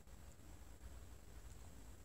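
Near silence: room tone with a faint steady low rumble and a thin high whine.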